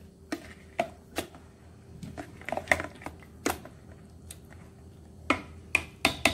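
Metal potato masher mashing a thick vegetable mixture in a stainless steel Instant Pot inner pot, with irregular clinks and knocks of the masher against the pot, about a dozen, sometimes in quick clusters.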